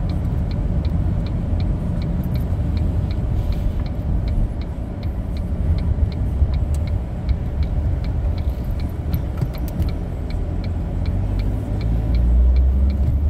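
Steady low rumble of road and engine noise inside a moving car's cabin, with the car's turn-signal indicator ticking evenly at about three ticks a second.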